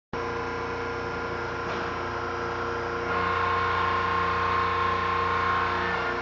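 Hydraulic power unit of a home-built hydraulic crane, an electric motor and pump, running with a steady hum. About three seconds in it gets louder and a higher whine comes in as the pump works under load while the boom is raised.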